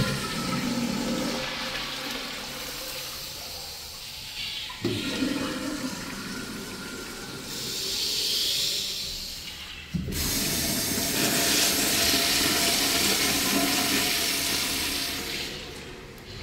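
Wall-hung urinal flushing through a chrome manual flushometer valve, water rushing into the bowl. The rush surges anew about five seconds in and again about ten seconds in, then tapers off near the end.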